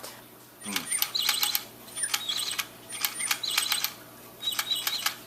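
Battery toy bird clicking and chirping in short repeated bursts about once a second, each burst a quick run of clicks with a high warbling tweet.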